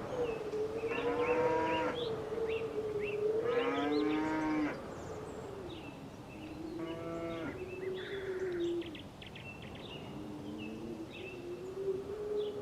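Cattle mooing: a long wavering low call runs throughout, with several louder, fuller moos over it, about a second in, around four seconds and around seven seconds.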